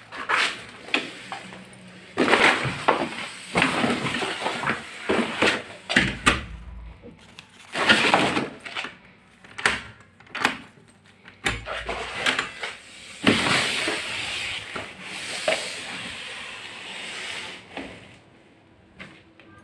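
Metal door hardware being worked: stainless lever handles pressed and released and the mortise latch clicking and rattling in an irregular run, with a couple of low thuds as the door moves against its frame.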